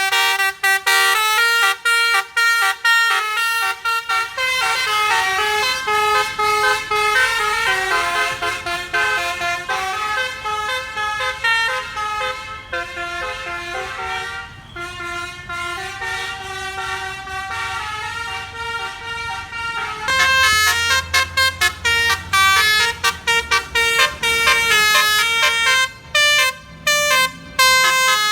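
Indonesian bus 'telolet basuri' multi-tone horn playing a melody: rapid staccato notes, then longer held and sliding notes, then rapid short honks again about twenty seconds in.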